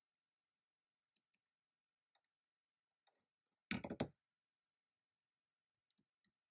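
Keystrokes on a computer keyboard, faint and sparse: a few single clicks, a quick, louder run of keystrokes just under four seconds in, then a few more single clicks near the end.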